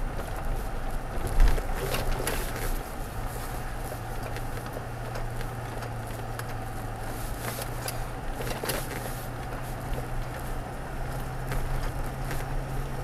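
Toyota Tacoma pickup driving slowly over a dirt and gravel road, heard from inside the cab: a steady low engine hum, with tyres crackling over the gravel and scattered small clicks and rattles. A thump about a second and a half in is the loudest sound.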